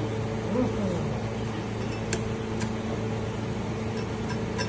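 Steady electrical hum from a welding machine at rest, with a few sharp clicks now and then.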